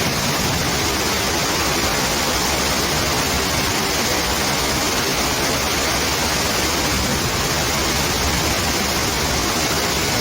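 Heavy thunderstorm rain pouring down, with rainwater running over an old tree trunk: a loud, steady, even rush.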